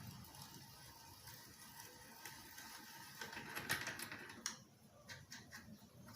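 Faint, scattered light metal clicks and ticks of wrenches working the loosened cone and locknut on a bicycle's rear hub axle.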